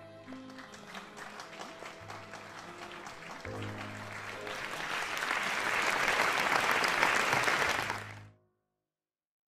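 The closing notes of a song's backing track, then applause that swells over it and cuts off abruptly about eight seconds in.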